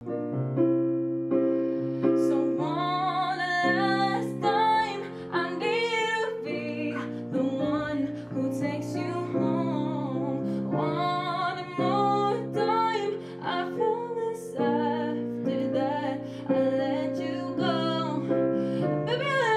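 Female voice singing a slow melody over piano chords; the piano comes in first, and the voice joins about two and a half seconds in.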